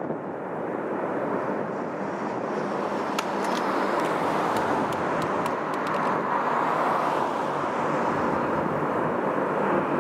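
The Antonov An-22's four turboprop engines, each with contra-rotating propellers, running as the aircraft taxis, heard from a distance as a steady broad drone that swells slightly partway through. A few faint sharp ticks come in the middle.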